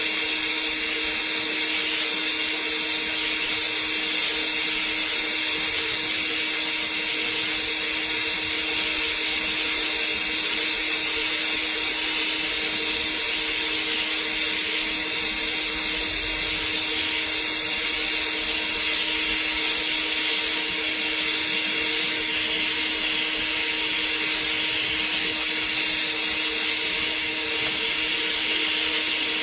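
TIG welding arc burning steadily during a capping pass on pipe: a continuous hiss with a steady hum under it.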